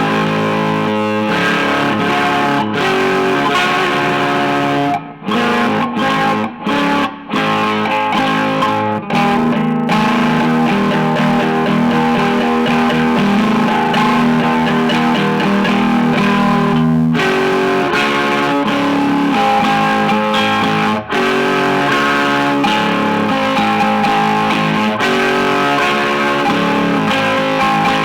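Electric guitar being practised, playing ringing chords and note lines, with a few short choppy stops about five to seven seconds in.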